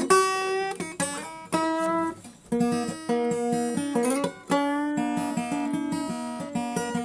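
A guitar playing an instrumental tune in plucked notes, with a few sliding notes a little past the middle.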